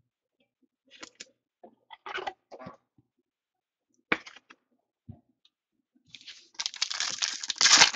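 A few soft clicks and rustles of cards being handled, then a trading-card pack's foil wrapper crinkling loudly and tearing open, loudest near the end.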